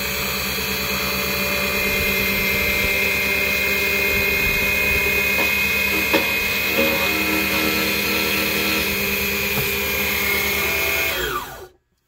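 Defu 368A laser key cutting machine's motor running steadily with a whine, its cutter bit tracing and milling along a side-cut (laser) car key blade that is already cut. Near the end the motor is switched off and winds down to a stop.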